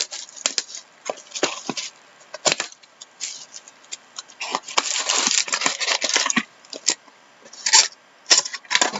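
Sealed trading-card boxes being cut and torn open by hand: scattered clicks and scrapes of cardboard and wrapping, a longer stretch of cutting and tearing about halfway through, and a few sharp scrapes near the end.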